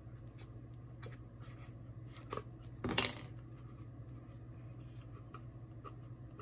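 Faint scratching and small handling clicks of vinyl wrap being worked by hand onto a plastic rifle magazine, with a louder rustling scrape about three seconds in, over a steady low hum.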